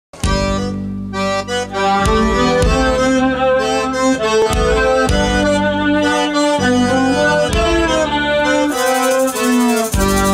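Southern Italian folk band starting a pizzica, led by a piano accordion with fiddle, acoustic guitar and frame drums. The music cuts in suddenly just after the start, with a bright jingling layer joining near the end.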